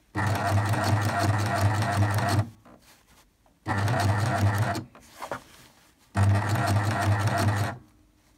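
Baby Lock coverstitch machine sewing a three-thread cover stitch in three short runs, each a second or two long, stopping and starting again between them as the hem is fed through a little at a time.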